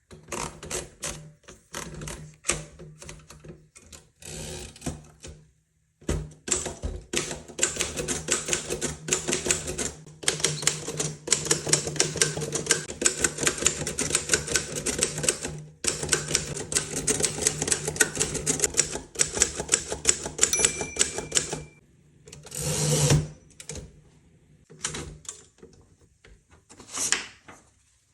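1920s Royal 10 manual typewriter being typed on: typebars striking in a fast run of clacks, at first sparse and then dense and rapid. Near the end of the run comes a brief ring, then a louder sliding rush like a carriage return, and finally a few single clacks.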